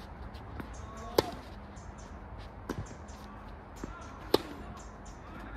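Tennis ball struck by rackets during play: two loud, sharp hits about three seconds apart, with fainter hits and bounces between them.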